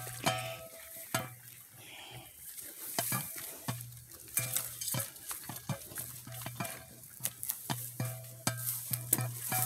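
Footsteps crunching through dry grass and brush, with twigs and branches crackling and scraping in an irregular run of sharp clicks.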